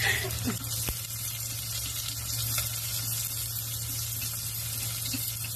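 Chopped onion sizzling in hot oil in a small stainless steel saucepan, an even hiss that runs steadily, with a steady low hum underneath and a light click or two about a second in.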